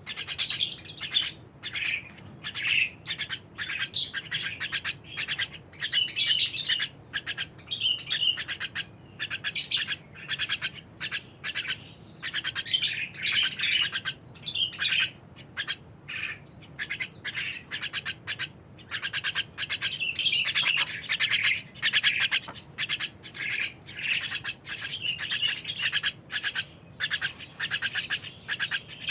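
A songbird chirping and singing continuously in quick, high, varied phrases.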